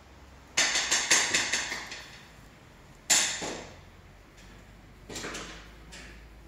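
Sharp knocks with a ringing decay: a quick run of several about half a second in, one loud single knock about three seconds in, and a softer one near the end, over a low steady hum.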